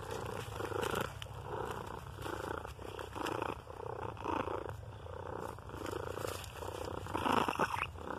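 Gray domestic cat purring right against the phone's microphone, a steady low purr that swells and fades with each breath, about one and a half times a second. Near the end comes a brief louder rustle as its fur rubs against the phone during head bumps.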